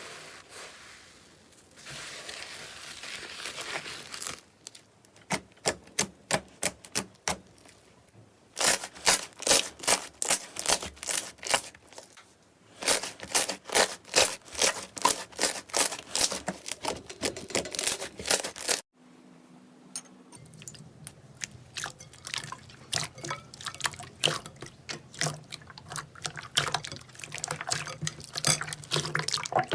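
Slime being squeezed and worked by hand: runs of quick, sharp, sticky pops and crackles, after a few seconds of soft squishing, in several separate clips with an abrupt cut between them.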